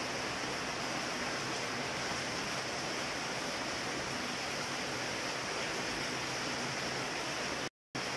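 Steady rain falling on trees and leaves, an even hiss with no let-up. It breaks off for a moment near the end.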